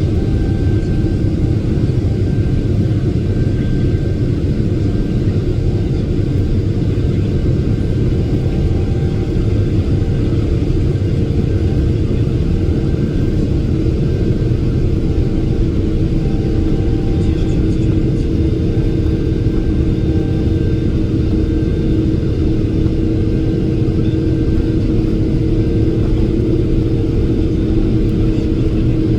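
Boeing 777-300ER cabin noise: a loud, steady rumble with an even engine hum, unchanging throughout.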